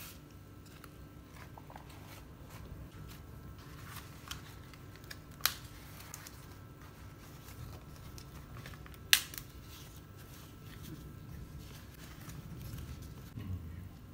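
Faint crinkling and rustling of a wilted banana leaf as hands fold it into a parcel and press it flat, with two sharp clicks, about five and a half and nine seconds in, standing out above it. A low steady hum runs underneath.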